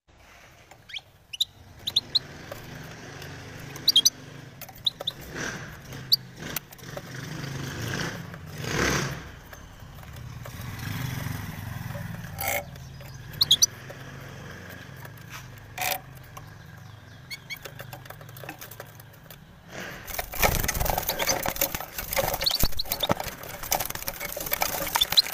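A caged European goldfinch gives short, high chirps and beats its wings about the cage, with sharp clicks as it knocks the bars, over a low engine hum from street traffic. From about twenty seconds in, a burst of loud, frantic wing-flapping.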